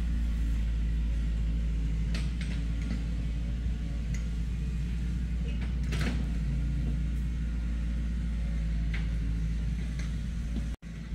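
An engine idling steadily with a low rumble, with a few faint clicks and creaks scattered over it.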